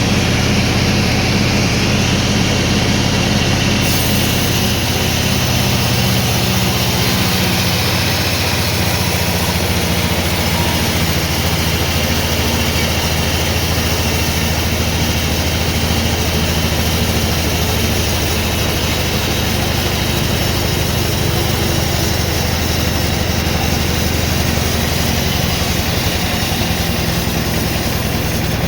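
Sawmill machinery running with a steady, unbroken mechanical drone.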